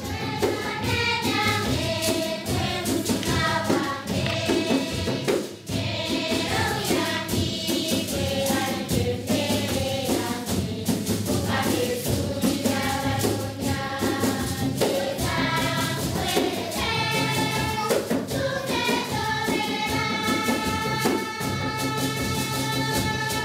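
A choir singing a song over a steady low accompaniment.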